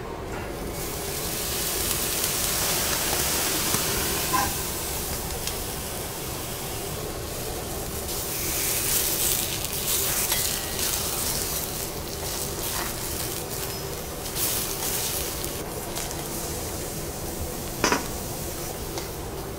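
Abalone sizzling on a hot teppanyaki griddle under a stainless steel dome: a steady frying hiss that swells twice. A few light metal taps sound over it.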